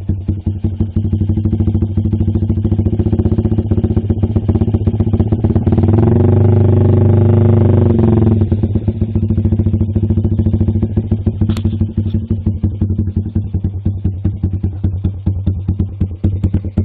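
Lifan KP Mini 210cc single-cylinder engine running through an aftermarket racing exhaust can, its firing pulses beating evenly. About six seconds in it revs up and holds high revs for about two seconds, then drops back to a slower beat, with a sharp click near the middle.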